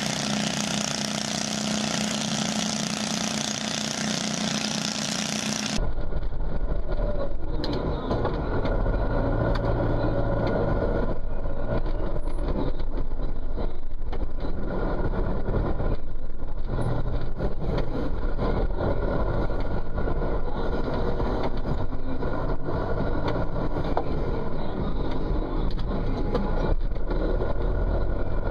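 A garden tractor's small engine running hard as it pulls a weight-transfer sled. About six seconds in it cuts off sharply, replaced by a deep, steady engine rumble heard from inside a farm tractor's closed cab.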